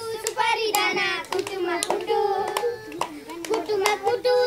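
Children singing a Tihar bhaili song together, with hand claps keeping a steady beat.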